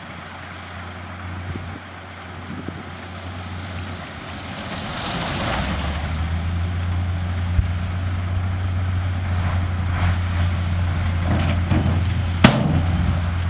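Heavy earthmoving machine's diesel engine running with a steady low drone, which grows louder about five seconds in. There is a single sharp clank near the end.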